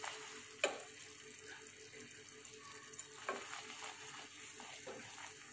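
A sugar, milk and butter sauce bubbling and sizzling faintly in a nonstick frying pan as a silicone spatula stirs it. A few sharp clicks are heard, the loudest about two-thirds of a second in.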